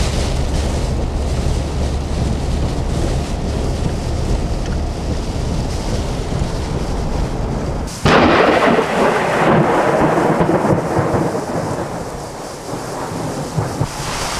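Thunderstorm with steady rain and wind noise. About eight seconds in, a sudden loud thunderclap breaks out and rumbles away over the next few seconds.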